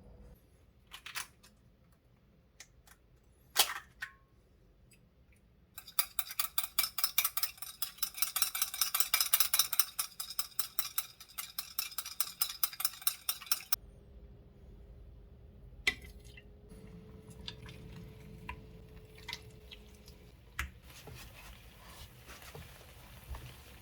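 Kitchen utensils clinking and knocking against dishes. A loud knock comes near the start, then a run of fast, even stirring or scraping strokes lasts about eight seconds. After that there is a low hum with light clicks.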